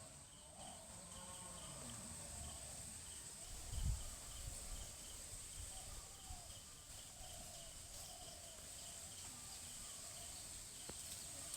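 Faint outdoor rural ambience: a steady high insect drone, with a pulsing chirp repeating about two or three times a second and faint wavering calls lower down. A brief low thump comes about four seconds in.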